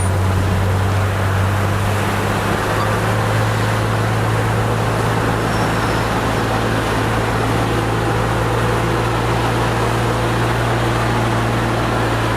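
Heavy diesel engine of a crawler bulldozer running at a steady speed, a constant low hum over dense mechanical noise.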